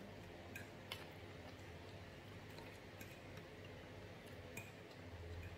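A few faint clicks and taps, about five spread out, as a metal fork works at a plate of rice and sauce.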